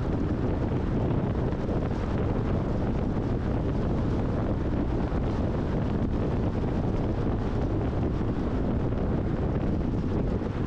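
Steady wind and road noise of a car driving at highway speed, a low, even rumble with wind buffeting the microphone.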